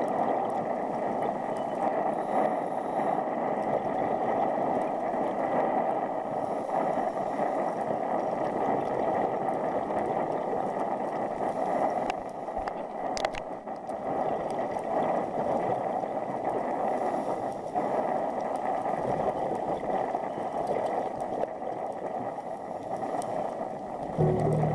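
Steady, muffled rushing of water picked up by a camera in an underwater housing, with a single sharp click a little past halfway.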